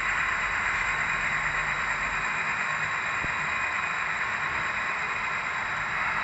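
A string of model railroad boxcars rolling past on the track, giving a steady, even rolling noise.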